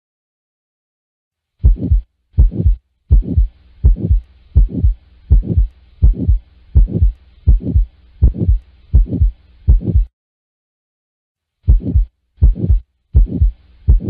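Auscultation recording of a heartbeat with a heart murmur: a run of evenly spaced lub-dub beats, a bit over one a second, with a faint hiss between them. The recording stops about ten seconds in and starts again after a pause of about a second and a half.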